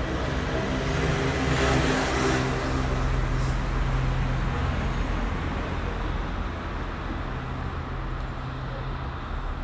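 Street traffic: a motor vehicle's engine runs steadily with a low hum, and the noise swells briefly about two seconds in, as a vehicle passes.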